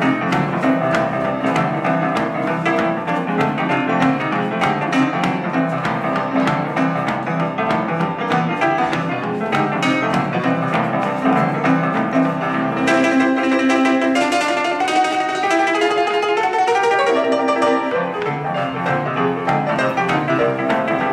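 Upright piano played solo in an uptempo boogie-woogie style, both hands driving steadily. About 13 seconds in the bass drops out while a rising run climbs up the keyboard, then the full two-handed playing returns.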